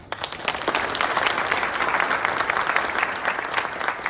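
Audience applauding: many hands clapping together, starting suddenly and beginning to die away near the end.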